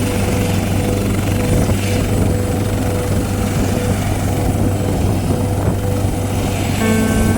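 Helicopter running steadily: dense, even rotor and engine noise with a strong low hum and a thin steady whine. A few sustained musical notes come in just before the end.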